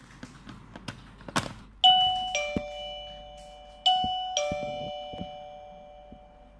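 Daytech CC01 wireless doorbell chime playing a two-tone ding-dong, high note then low note, twice, the notes ringing on and slowly fading; it is one of the doorbell's selectable ringtones. A few light clicks come just before it and between the notes.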